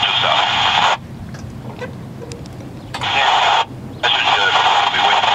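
Railroad scanner radio hissing with open-squelch static, which cuts out for about two seconds a second in and again briefly later, leaving a quieter outdoor background with a low hum.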